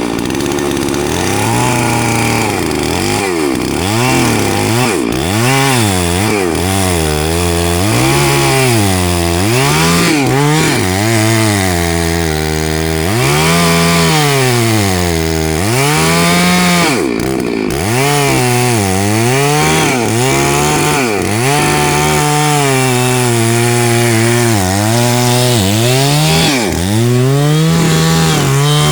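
Two-stroke chainsaw cutting into a tree, running loud and continuous. Its engine note sags under load and climbs back every second or two as the chain bites and eases.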